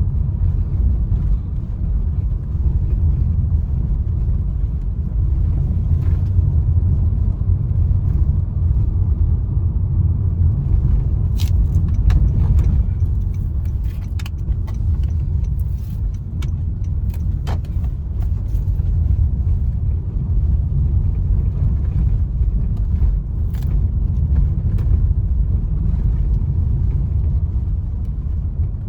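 Inside the cabin of a 2016 Honda HR-V driving over a wavy street: a steady low road and tyre rumble, with scattered light clicks and rattles from loose belongings and old parts in the boot. There is no clunking from the front suspension: the new shock absorbers, control arms, stabilizer links and anti-roll bar bushes have cured the HR-V's typical front-suspension noise.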